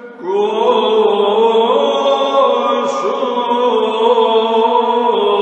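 Byzantine chant in the first mode: a chanter sings a slow melismatic line on held vowels, moving up and down in steps over a steady held drone note (the ison). The voice re-enters after a short breath just at the start.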